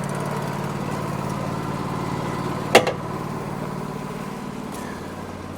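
Wood-Mizer LT40 sawmill's 26.5-horsepower engine running steadily at idle, with a single sharp knock about three seconds in.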